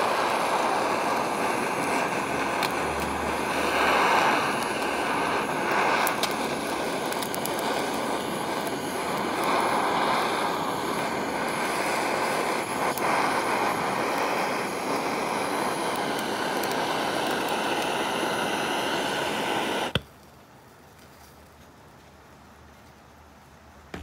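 Flame of a handheld R200 butane gas torch hissing steadily as it burns an egg's shell, then cutting off suddenly near the end.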